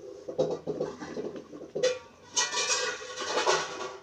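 A sheet of paper crinkling and rustling as it is folded and tucked by hand: short crackles, then a longer stretch of crinkling about two and a half seconds in.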